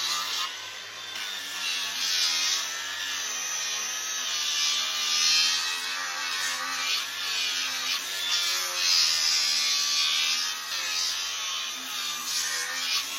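A small electric power tool runs steadily and whirs, its pitch wavering up and down as it grinds or sands down a draft horse's hoof.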